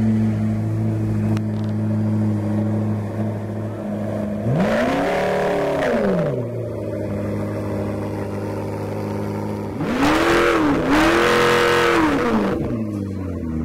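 McLaren P1's twin-turbo V8 idling, revved once about four and a half seconds in and twice in quick succession around ten seconds in, each rev rising and dropping back to idle.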